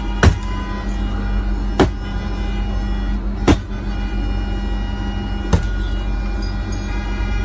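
Four sharp blows against a cracked bus windshield, spaced about one and a half to two seconds apart, over the steady hum of the idling bus engine.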